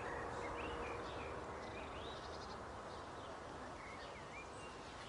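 Garden birds chirping and singing in short, scattered calls over a steady low background hum.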